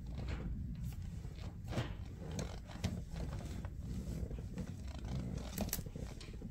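Hands working a shifter boot over the gear lever and shift knob of a 5-speed manual, pressing it into place: irregular rustling and creaking of the boot material with scattered small clicks and knocks.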